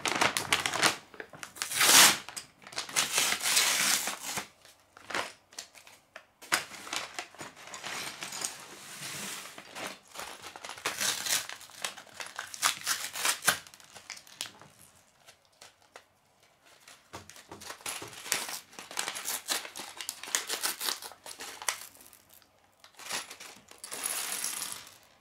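A paper LEGO parts bag being crinkled and torn open in irregular bursts of rustling. Near the end, small plastic LEGO pieces are poured out of it and clatter onto a wooden table.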